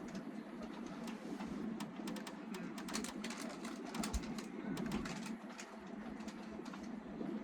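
Train carriage interior: a steady low hum with many irregular light clicks and rattles.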